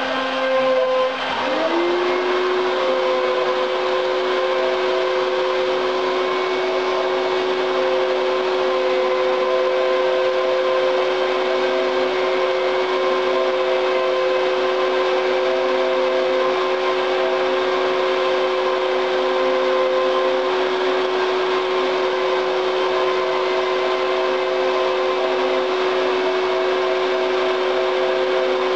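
Desktop CNC router running: the Kress spindle motor spins at a steady high speed while the axes move and the bit cuts a pattern into laminated chipboard. A whine rises and settles about a second and a half in, then holds steady with the other tones.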